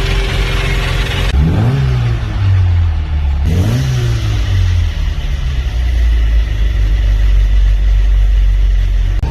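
Classic Mini Cooper's tuned A-series four-cylinder engine idling, blipped twice, about one and a half and three and a half seconds in, each rev rising and falling quickly before it settles back to a steady idle. A rushing hiss lies over the first second or so.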